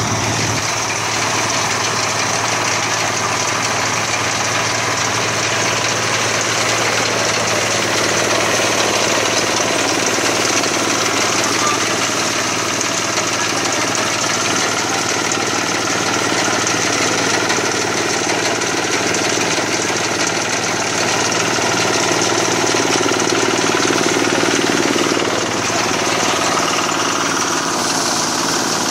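Zaaga Inotech rice combine harvester running steadily, its engine holding an even, unbroken drone with a low hum.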